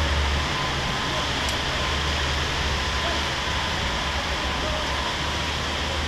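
Steady hiss of heavy rain over a low rumble of city traffic.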